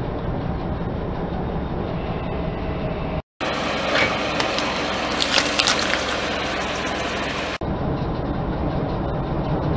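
A car running close by as it rolls slowly over a concrete floor: a steady low engine and tyre rumble, with scattered crackling ticks in the middle stretch. The sound drops out for a moment about three seconds in.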